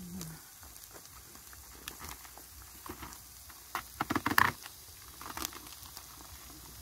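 Faint sizzling of food frying in oil in a pan. About four seconds in comes a quick run of sharp knife strokes on a chopping board, with a couple more a second later.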